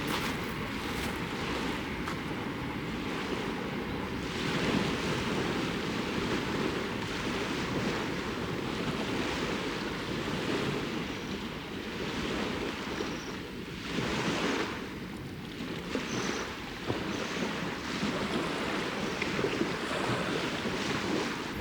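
Small waves washing onto a lakeshore, swelling and easing in surges, with wind noise on the microphone.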